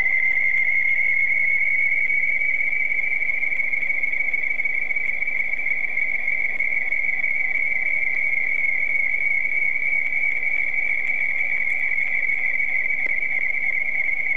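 A steady high-pitched tone over a faint hiss. It rises a little in pitch during the first second or two and then holds one pitch.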